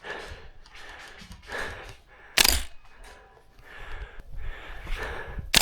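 A player's heavy, quick breathing, a puff about every half second, broken by two sharp loud knocks, one about halfway through and one at the very end.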